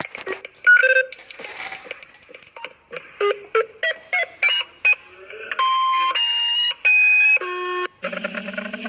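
Electronic emergency alert tones: a quick run of short beeps jumping between pitches, then a few longer tones of about half a second each at different pitches. About eight seconds in, a steady low buzzing tone begins.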